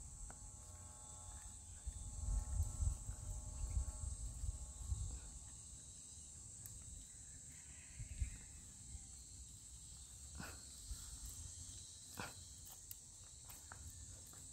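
A steady, high-pitched chorus of insects buzzing in the grass. A low rumble sits under it for the first few seconds, and a few sharp clicks come later on.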